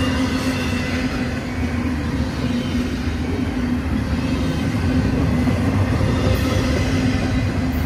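Double-stack intermodal freight train's well cars rolling past close by: a continuous wheel-and-rail rumble with a steady low hum running through it.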